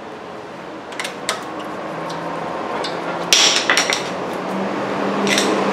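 Metal hand tools clinking and knocking: two light clicks about a second in, a louder cluster of clanks a little past the middle and one more near the end, over a steady low shop hum.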